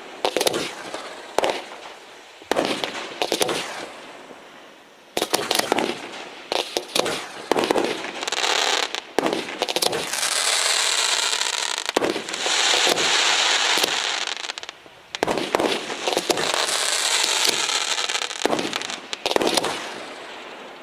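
Aerial fireworks: a string of shell bursts going off one after another, with long stretches of dense crackling at about the middle of the clip and again a little later.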